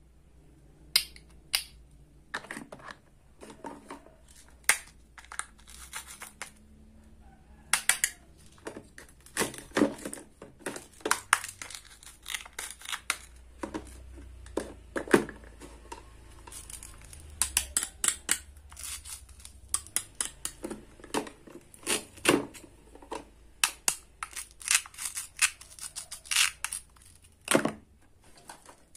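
Toy play food of wood and plastic being handled and cut with a wooden toy knife: a steady run of sharp clicks and taps, with short rasps as velcro-joined fruit halves are pulled apart.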